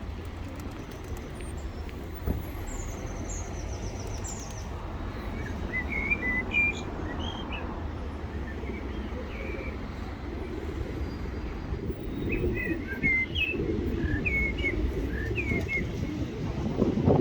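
Small birds chirping in short clusters, with pigeons cooing low underneath, over a steady low rumble.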